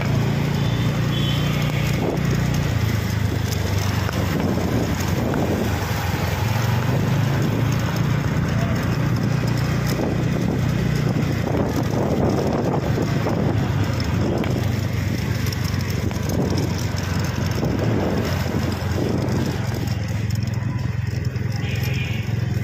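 Motor vehicle engine running steadily at low speed close to the microphone, with road noise, a low even hum that holds throughout.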